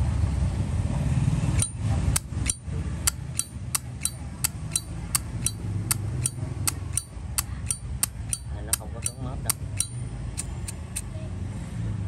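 Zippo lighter lid flipped open and snapped shut over and over: a run of sharp metallic clicks, about two to three a second, starting about two seconds in and stopping near the end.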